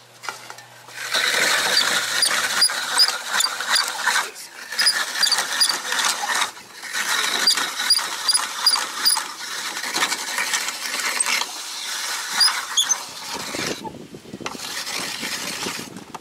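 Hand-cranked coconut grater being turned, its toothed head scraping the flesh out of a ripe dry coconut half. A high squeak comes about three times a second as it turns, in runs broken by several short pauses.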